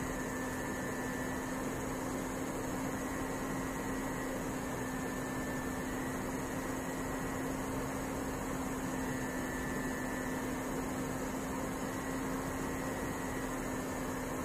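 Steady hiss with a constant low hum: the noise floor of an air traffic control radio recording between transmissions, with no one keying the frequency.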